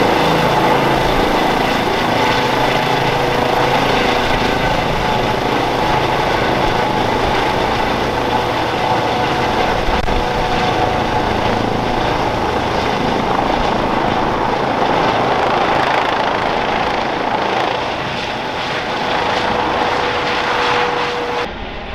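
Airbus H135 P3 helicopter climbing away overhead just after take-off: a loud, steady sound of rotor blades and twin Pratt & Whitney PW206B3 turboshaft engines, with a steady turbine whine. It grows a little quieter over the last few seconds.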